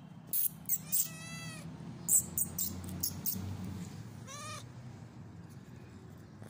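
A cat meowing twice, once about a second in and again around four and a half seconds in, among a scatter of short sharp clicks. A low steady hum runs underneath.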